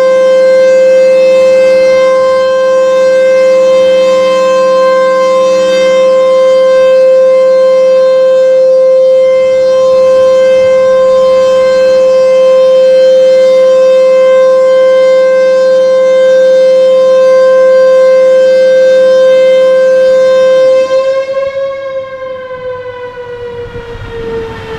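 Federal Signal Thunderbolt 1000B tornado siren sounding a loud, steady single-pitch tone with no rise and fall in loudness, because the siren head is not rotating as it should. About 21 seconds in the level drops and the pitch begins to slide down as the siren winds down.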